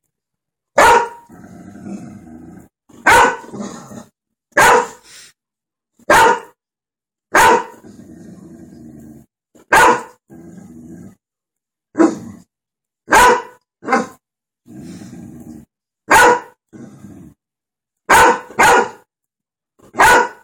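Golden retriever barking at dogs on a television: about a dozen loud single barks, roughly one every one to two seconds, a few coming in quick pairs. Quieter, lower sounds fill the gaps between barks.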